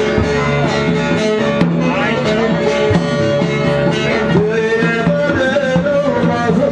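Live, amplified Turkish folk music: a bağlama (long-necked saz) plucked with a plectrum, with a violin carrying held, gliding melody lines over it.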